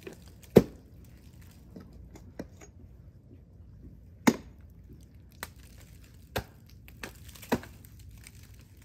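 Ice tool picks and crampon front points striking thin ice: a string of about seven sharp chops. The loudest comes about half a second in and another about four seconds in.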